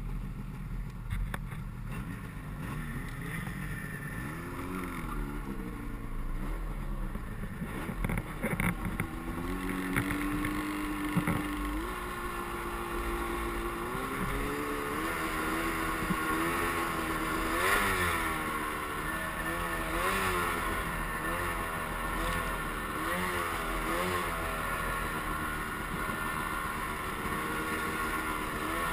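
Snowmobile engine running under way through powder snow, its pitch rising and falling again and again with the throttle and holding steady for a couple of seconds near the middle.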